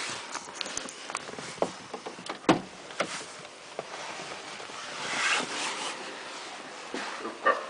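Scattered clicks and knocks inside a car's cabin, with a sharper thump about two and a half seconds in and a brief rushing noise around five seconds in.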